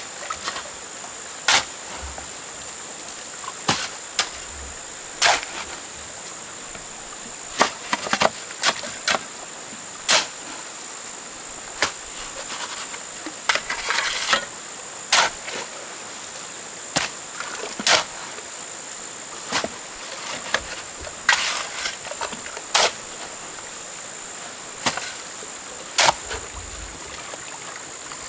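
Sharp, irregular knocks of a hand tool striking wood, about one every second or two, over a steady high-pitched insect drone.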